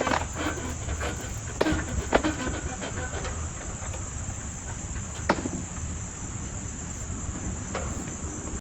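A steady high-pitched insect drone over a low rumble, broken by a few sharp knocks, the loudest about five seconds in.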